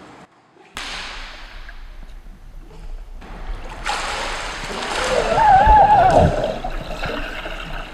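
Pool water splashing and sloshing as a swimmer thrashes through it with arm strokes and kicks. It starts about a second in and grows louder from about four seconds in. A short wavering tone sounds over it a little past the middle.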